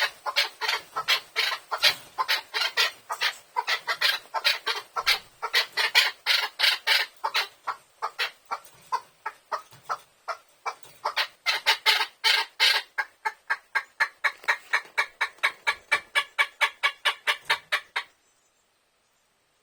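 Chukar partridge calling: a long run of rapid, repeated clucking notes, about four or five a second. The notes swell and fade and stop abruptly near the end.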